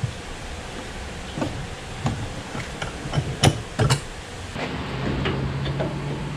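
Metal clanks and clicks from a steel bench vise and a sheet-metal patch panel being clamped and handled, the loudest two knocks about three and a half seconds in. A steady low hum follows from about four and a half seconds in.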